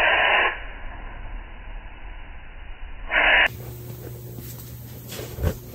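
Aerosol spray can spraying in two short bursts of hiss, the first ending about half a second in, the second a brief one about three seconds in. After a cut, a steady low hum with a few light knocks.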